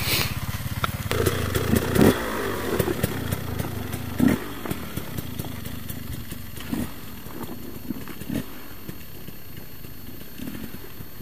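Enduro dirt-bike engines running, with short throttle blips, the sound growing fainter as the bikes ride off down the hill.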